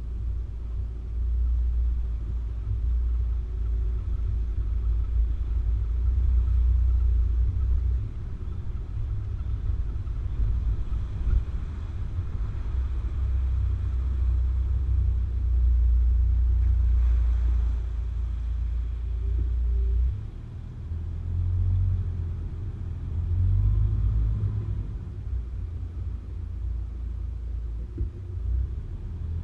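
4WD vehicle driving off-road: a low, uneven rumble that swells and eases as it goes.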